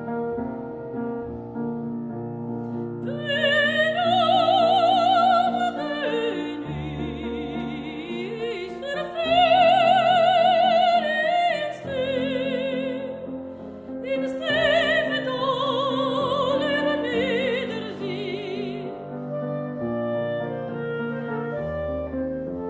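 Piano playing alone at first; a soprano enters about three seconds in, singing long held notes with wide vibrato over the piano accompaniment. She stops near the end and the piano carries on alone.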